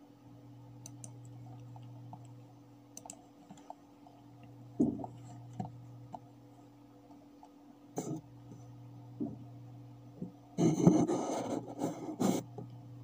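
Computer mouse clicks, a handful spaced a second or more apart, over a steady low hum. Near the end comes a louder stretch of rustling and knocking.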